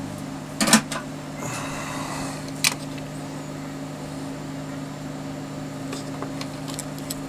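A steady low mechanical hum, like a small motor or fan running, with a few sharp clicks of handling on the bench, the loudest just under a second in and another near three seconds in.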